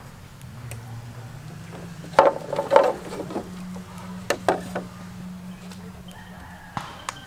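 Hollow bamboo poles knocking and clacking against one another as they are handled and laid into a deck: a quick cluster of sharp knocks about two seconds in, then a few scattered single knocks.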